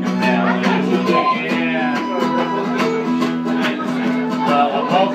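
Live country song on guitar, strummed in a steady rhythm with held chords.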